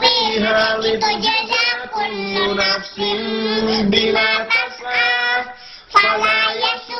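A young girl and a man chanting Quran recitation together in a melodic, drawn-out style, holding long wavering notes. The voices break off briefly about five and a half seconds in, then begin a new phrase.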